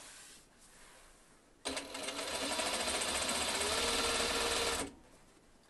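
Juki sewing machine running at speed for about three seconds, stitching a seam to join patchwork pieces. It starts abruptly about one and a half seconds in and stops sharply.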